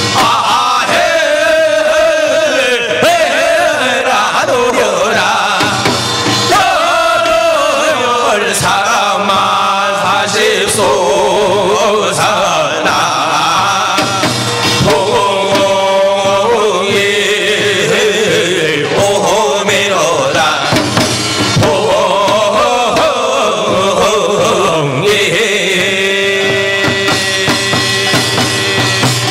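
Male voice singing a Korean folk chant with melismatic, sliding lines, accompanied by samul nori percussion: kkwaenggwari small gong, janggu hourglass drum, buk barrel drum and jing gong.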